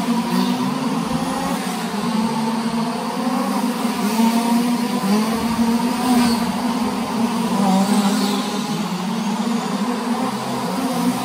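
Several 1/5-scale RC dirt oval cars racing together, their small two-stroke gas engines making a continuous buzzing drone whose pitches waver up and down as the cars accelerate and slow around the oval.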